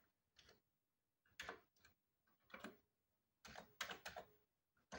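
Faint, separate key clicks of a Commodore 64 keyboard as a command is typed, several keystrokes spaced unevenly with a few in quick succession near the end.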